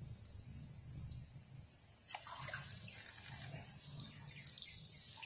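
Water streaming and splashing off the mesh of a bamboo lift net as it is hauled up out of the river, starting about two seconds in, over a low rumble.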